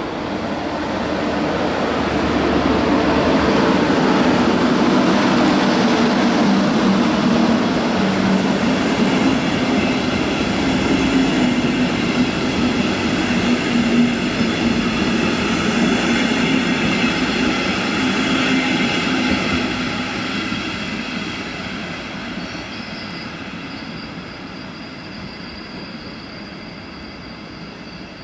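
Electric-locomotive-hauled regional train of double-deck coaches rolling slowly into a station, its rumble swelling and then fading as it passes and draws away. From about ten seconds in, high steady squealing tones from the running gear sound over the rumble as the train slows.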